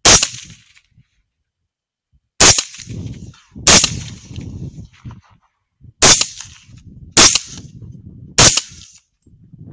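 Six rifle shots fired in quick succession at feral hogs, spaced about one to two and a half seconds apart, with a lower rumble between them.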